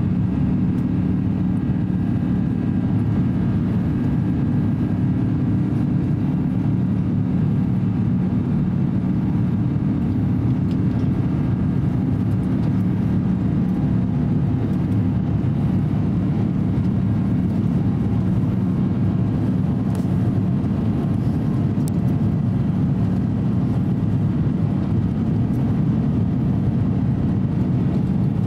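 Steady, loud cabin drone of an Airbus A350-900 in flight: the Rolls-Royce Trent XWB turbofans and the airflow around the fuselage, heard from a window seat, even and unchanging throughout.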